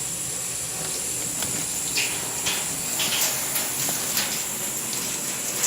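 Steady hiss of water with irregular splashing swishes, cutting off abruptly near the end.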